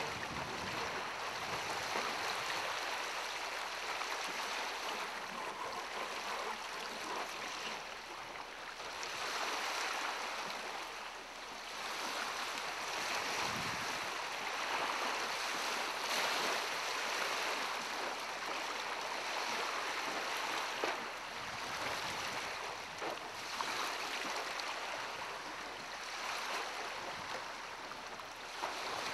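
Small waves lapping and washing against the shore and a boat hull, swelling and fading every few seconds, with one brief knock about two-thirds of the way through.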